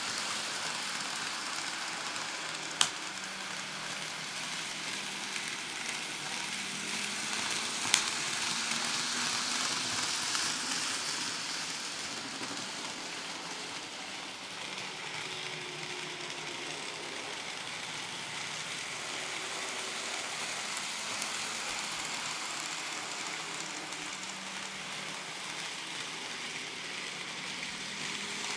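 Atlas N scale GE Dash 8-40CW model locomotive running around the layout with its coal hoppers: a steady hiss-like whir of the motor and wheels on the track, with two sharp clicks about three and eight seconds in.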